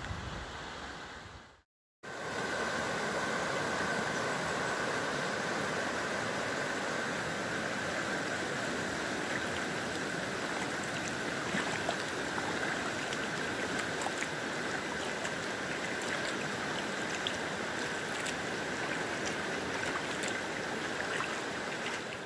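The Doubs river in flood, its fast water rushing steadily past the drowned bank trees. The rushing starts after a brief break about two seconds in and runs on without change.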